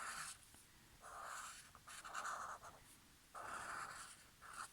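Permanent marker pen drawing on paper in about five short, faint strokes, outlining a shape.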